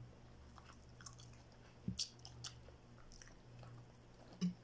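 Faint close-up chewing and mouth sounds of people eating by hand, with a few soft clicks and a sharper click about two seconds in.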